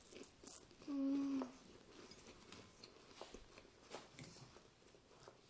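Saltine crackers being chewed with a full mouth: faint, scattered crunching and mouth noises. About a second in there is a short closed-mouth hum, "mm".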